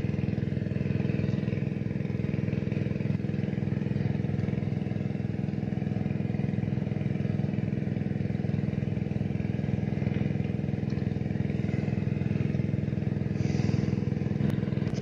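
A motor or engine running steadily at an even speed, a constant low drone that does not change.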